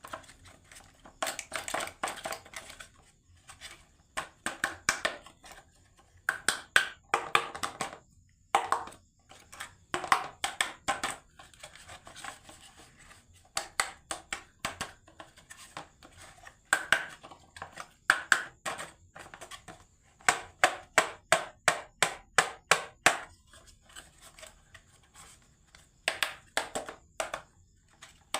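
Marbles clattering down a wooden HABA marble run, a quick series of sharp ringing clicks and clacks in runs of a few seconds with short pauses between.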